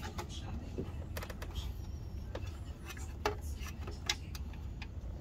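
Scattered light metallic clicks and clinks of intake hardware and a metal bracket being handled and fitted by hand, over a steady low hum.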